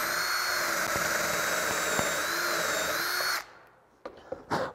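Power drill running steadily with a countersink bit, boring a screw hole into the wooden jaw of a cam clamp. It stops abruptly about three and a half seconds in, and a few short clicks follow.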